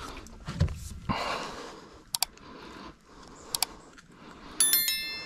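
A person breathing hard after landing a largemouth bass, with soft puffs of breath and small handling noises. Two sharp clicks come midway, and a brief high ringing chirp sounds near the end.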